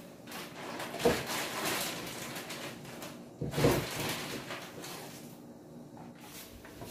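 Air fryer basket being handled, with two sharp knocks about a second and three and a half seconds in, each followed by scraping and rustling.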